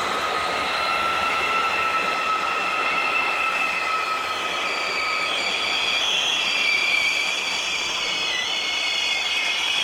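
A train rolling slowly, its wheels squealing in several high, sustained tones over a steady rumble and hiss. The tones waver in pitch, and one lower squeal fades out about halfway through.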